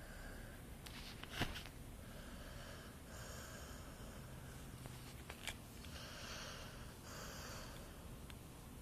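Faint snoring: about four soft, hissing breaths a second or two apart, with a sharp click or snort about a second and a half in and a smaller one about five and a half seconds in.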